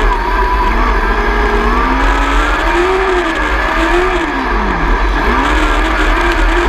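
600 micro sprint car's 600cc motorcycle engine, heard from on board while racing. The engine note rises and falls as the driver lifts for the turns and gets back on the throttle, with the deepest drop about five seconds in before it climbs again. A steady heavy rumble runs underneath.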